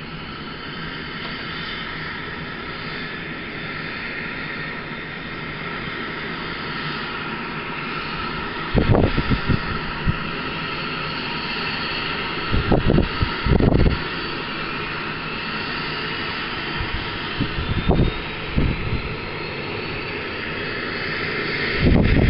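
Bell 430 helicopter running on the ground with its rotor turning: a steady twin-turboshaft whine and rotor noise, with a faint tone rising in pitch over the last several seconds. Several loud low gusts of wind buffet the microphone.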